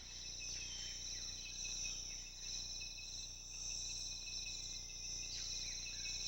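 Chorus of crickets and other insects: a steady high-pitched drone with repeated short trills of rapid chirping, each about a second long.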